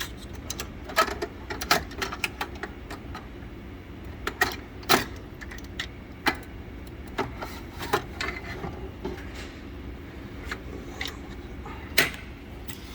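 Irregular clicks and sharp knocks of hands and tools working on a Christie cinema projector to open its lamp housing, over a steady low hum.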